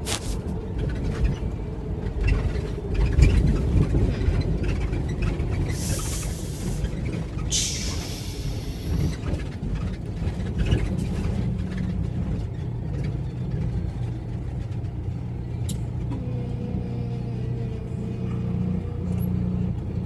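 Truck engine running with road rumble, heard from inside the cab, with a steady low engine note. Two short hisses cut in about six and eight seconds in.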